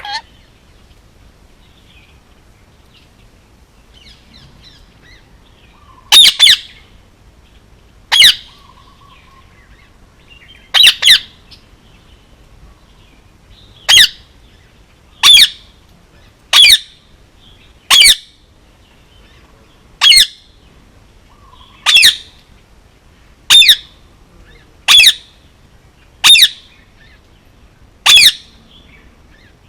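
Male Indian ringneck parakeet giving short, loud calls, one every second and a half to two seconds, starting about six seconds in; a couple of the calls come in quick pairs.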